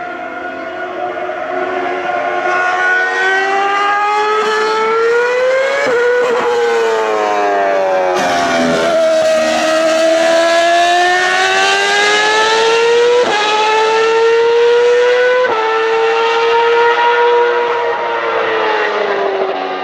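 A high-revving Ferrari racing engine screaming as the car laps the track, its pitch climbing under acceleration and jumping at several gear changes.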